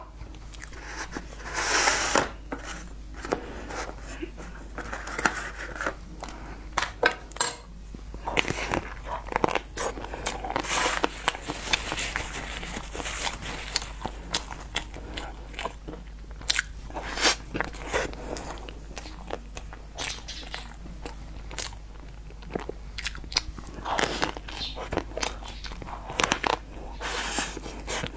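Close-miked biting and chewing of a chocolate-coated cake, with many short, sharp crunches.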